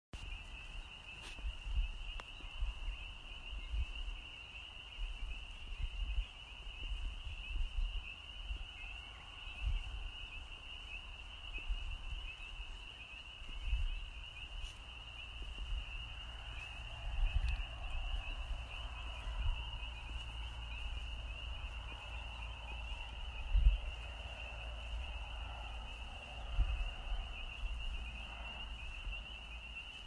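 A dense chorus of spring peepers, their high peeps merging into one continuous shrill band. Irregular low rumbles come and go underneath.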